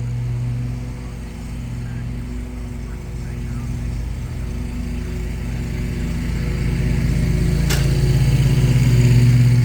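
Lawnmower engine running steadily, growing louder over the last few seconds, with one sharp click near the end.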